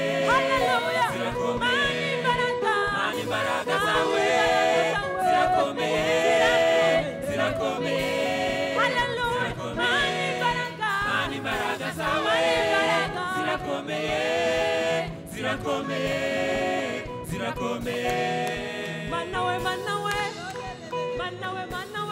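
A church worship team of several singers singing a gospel praise song together, voices sliding between notes, over a steady instrumental backing.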